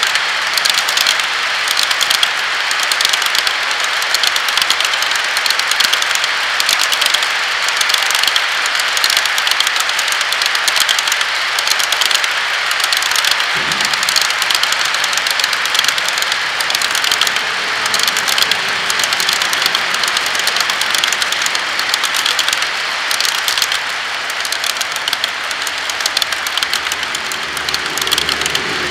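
HO scale model freight cars rolling past on sectional track: a steady rattling hiss of many small wheelsets running on the rails, with fast fine clicking throughout.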